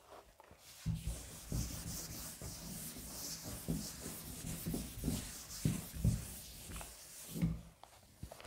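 Cloth duster wiping chalk off a blackboard in repeated rubbing strokes. It starts about a second in and stops shortly before the end.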